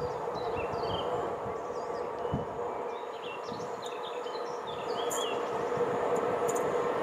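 Express train hauled by a class 350 electric locomotive approaching: a steady rumbling hum that slowly grows louder. Birds chirp over it.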